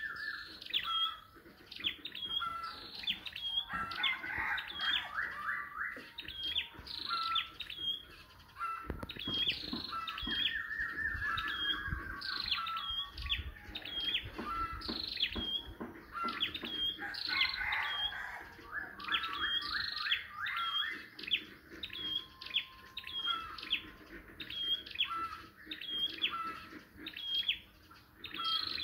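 Flowerpecker calls used as a trapping decoy: a steady run of short, sharp, high call notes repeated about every second, with several bursts of fast trilling among them.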